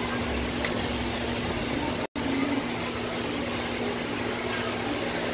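Steady mechanical hum over a constant low drone, broken by a brief dropout to silence about two seconds in.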